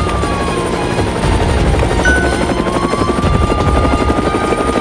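Toy rescue helicopter's electronic sound effect: a steady helicopter rotor chop with a siren tone that glides slowly down, then back up.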